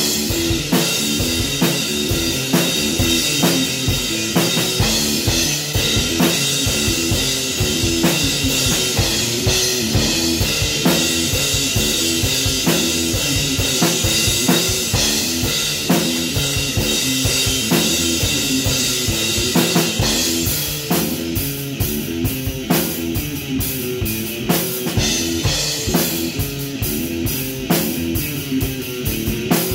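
Electric guitar playing a repeating riff over a steady drum-kit beat with kick and snare. The cymbal wash is heavy at first and thins out about two-thirds of the way through.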